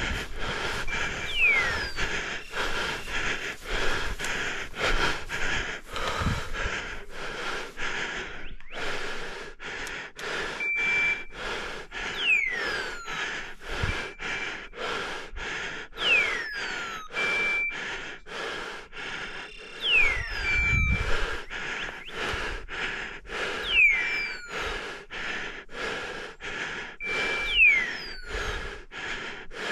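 Footsteps crunching through the forest floor about twice a second, with hard breathing. Over them come short high beeps every three seconds or so and falling whistle-like sweeps, typical of a hunting dog's beeper collar.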